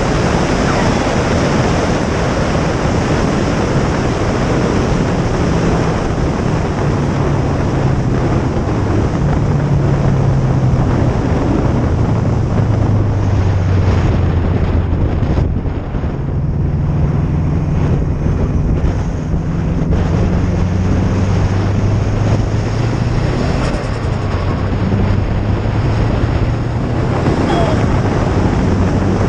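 Subaru Impreza WRX STi Type R's turbocharged flat-four engine under way, its note stepping up and down through the revs beneath a loud, steady rush of wind and road noise. Roughly halfway through, the higher noise briefly drops away.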